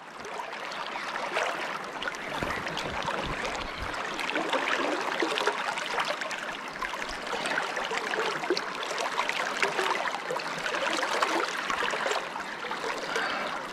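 River water flowing over stones: a steady rushing with fine splashing.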